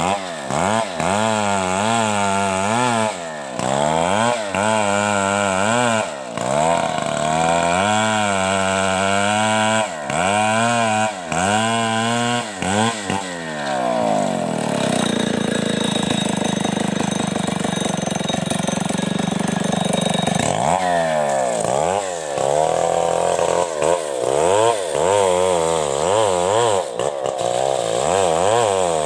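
STIHL two-stroke chainsaw ripping a coconut log lengthwise. The engine pitch rises and falls over and over as the chain bites into the wood and eases off, and holds steady at high revs for several seconds in the middle.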